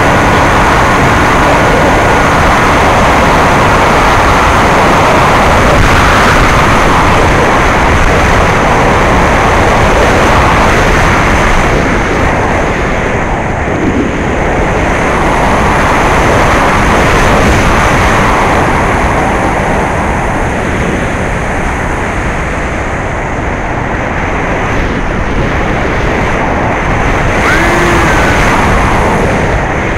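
Steady rush of airflow and the whine of the electric brushless motor and propeller of a small RC foam plane, picked up by the camera riding on the airframe; the sound eases a little from about halfway through.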